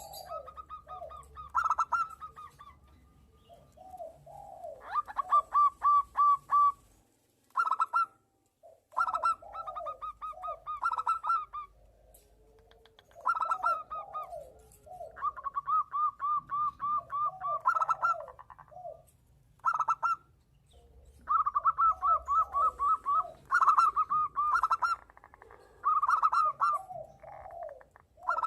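Zebra doves (perkutut) cooing. Bouts of rapid staccato notes lasting one to two seconds come every couple of seconds, with lower curving coo notes between them, like birds answering each other.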